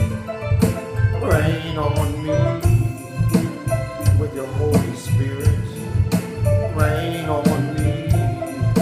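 A man singing a slow song over instrumental accompaniment, with a steady bass beat and light percussion.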